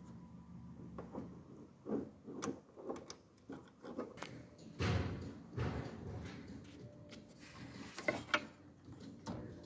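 Hands handling plastic connectors and wiring behind a car headlight housing: scattered clicks, rubs and rustles, with a couple of heavier knocks about five seconds in and sharp clicks near the end.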